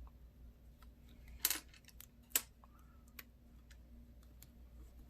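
Faint clicks and light scraping of hands working on a small plastic flip phone, picking off the silicone sealant, with two louder clicks about one and a half and two and a half seconds in.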